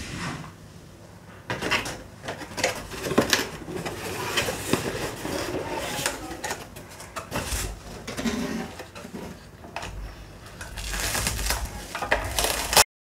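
Hands unpacking a toy RC car: plastic packaging and parts rustling and clattering, with many irregular clicks and knocks. The sound cuts off abruptly near the end.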